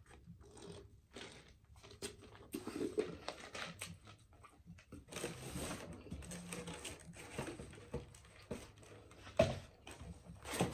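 Quiet sipping through a straw from a fountain-drink cup, with scattered small mouth and cup-handling clicks, and one louder knock near the end.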